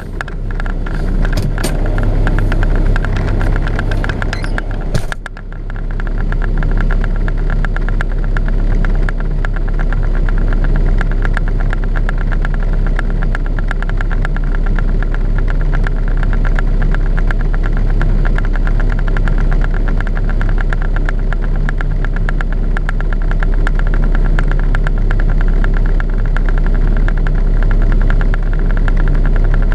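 Truck engine idling steadily, a deep even hum heard from inside the cab. A run of sharp clicks and knocks sits over it for the first five seconds or so.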